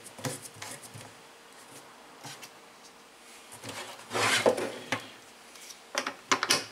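The plastic housing and fittings of a Lorenzetti Jet Turbo electric shower being handled on a wooden bench: plastic rubbing and scraping, with a louder stretch of rubbing about four seconds in and a few knocks near the end.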